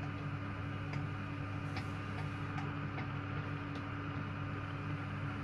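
Faint, irregular small clicks as a nylon nut and washers are handled and turned by hand onto a toilet-seat hinge bolt, over a steady low hum.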